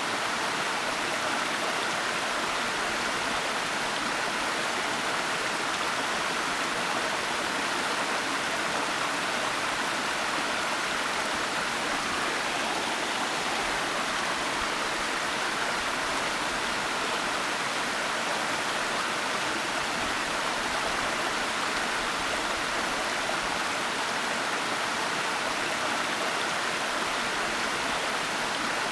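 Waterfall rushing, a steady unbroken hiss of falling water that does not change.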